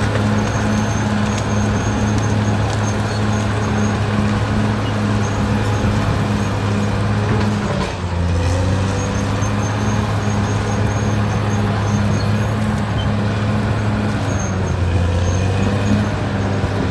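Caterpillar D6R XL bulldozer's diesel engine running steadily as the machine works. About halfway through, the sound dips briefly and the engine note then settles slightly lower.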